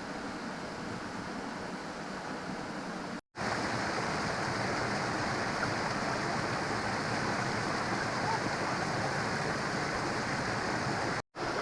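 Steady rush of running water from a bush creek and its small waterfalls. It is broken by two brief gaps of silence, the first about three seconds in, after which it is slightly louder.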